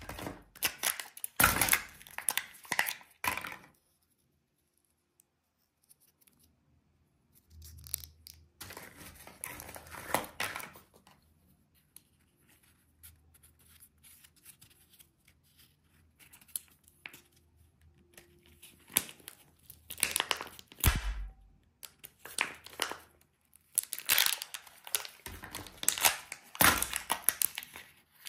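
Plastic and foil wrappers of surprise candy eggs being snipped with scissors and torn open, crinkling in several bursts with quiet pauses between.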